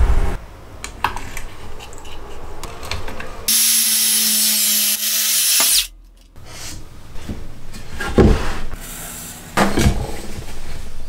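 Makita cordless circular saw running through a clamped board for a little over two seconds, stopping abruptly. Scattered knocks and clicks of wood and tools being handled come before and after it.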